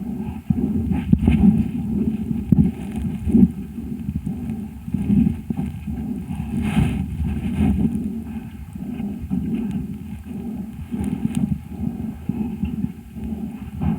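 Breath sounds of a calf with pneumonia, picked up through a homemade stethoscope microphone held on the body: a low rushing noise that swells and fades over and over, with one brief harsher, brighter sound about seven seconds in.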